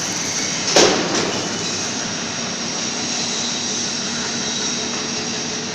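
Electric gear motors of a heavy welding rotator running steadily, driving the lead screw that moves the roller stands along the base, with a faint steady whine over the mechanical noise. A single sharp knock comes about a second in.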